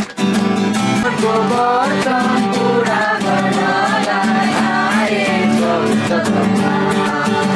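Music: a song with singing voices over steady instrumental accompaniment.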